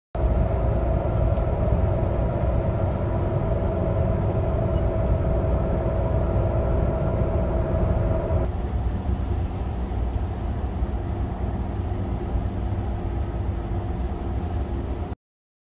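Amtrak Capitol Limited passenger train running on the rails, heard from inside the car: a steady low rumble of wheels and car body with a steady hum on top. The hum drops to a lower pitch at a cut about eight seconds in.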